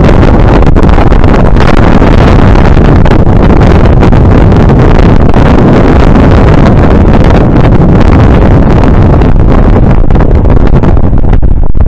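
Strong wind buffeting the microphone: a loud, continuous rumbling roar with gusty flutter.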